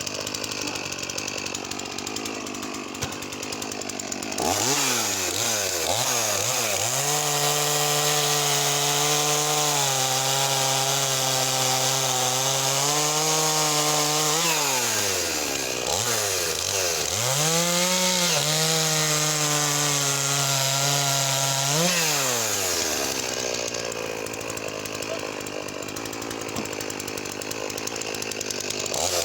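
Makita DCS4610 45cc two-stroke chainsaw. About four seconds in it is opened up to full throttle and cuts wood, its pitch dipping and recovering as the chain bites. It drops off briefly midway, revs up again for a second cut, and falls back to a low, rough run near the end.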